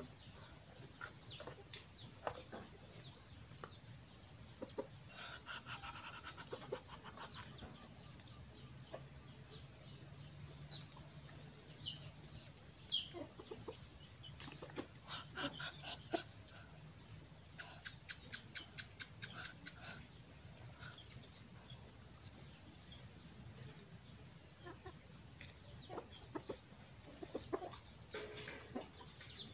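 Backyard ambience: chickens clucking on and off over a steady high-pitched insect buzz.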